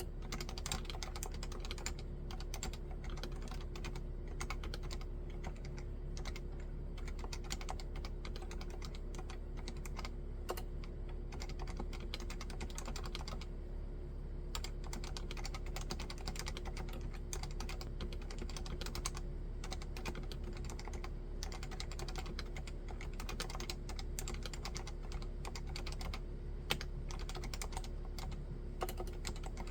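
Continuous typing on a Leopold FC660C 65% keyboard with Topre electrostatic capacitive switches, keystrokes coming thick and fast with a brief lull about halfway through and a few sharper single strokes near the end.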